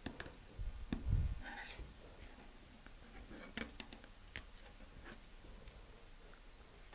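Faint scattered clicks and taps of small laser-cut plywood washers being punched out of a thin plywood sheet with a pointed tool and handled on a cutting mat, with a low thump about a second in.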